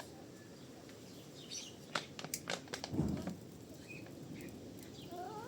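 Birds chirping faintly over a steady outdoor background, with a quick run of sharp clicks about two seconds in and a dull thump at about three seconds.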